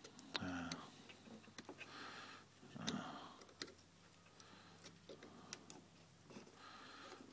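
Faint, scattered small clicks and ticks of a thin pick tool working against a plastic Ford relay box, prying at a terminal's locking tab to release the pin.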